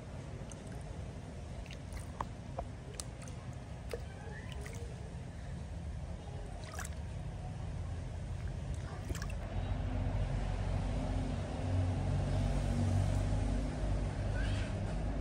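Small splashes and drips of water as a baby monkey is held and moved about in a shallow inflatable paddling pool, over a low steady engine hum that grows louder about two-thirds of the way through.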